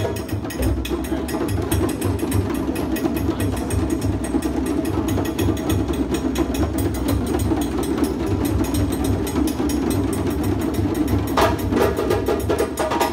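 Many djembe hand drums played at once by a large group in a fast, loose rumble of rapid overlapping strikes with deep bass thumps. Near the end, sharper strokes come in together.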